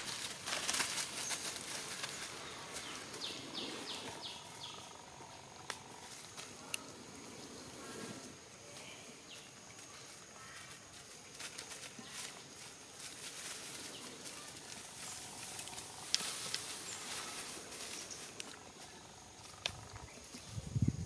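Dry leaves and twigs rustling and crackling as small monkeys move about on the leaf litter, over a faint steady insect drone.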